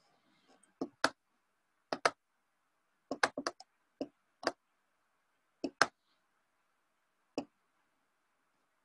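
Computer mouse clicking: about a dozen sharp clicks at irregular intervals, several in quick press-and-release pairs, while a PDF is opened and paged through.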